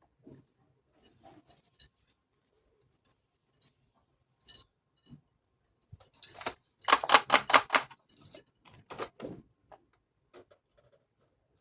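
Small toy kitchenware pieces being handled, giving scattered light clicks and then a quick run of clinking rattles about six to eight seconds in.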